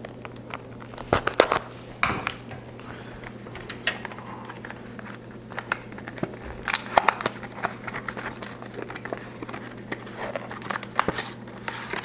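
Retail packaging of a Corsair Vengeance memory kit being opened by hand: the cardboard box and clear plastic clamshell crinkle and rustle, with scattered sharp plastic clicks.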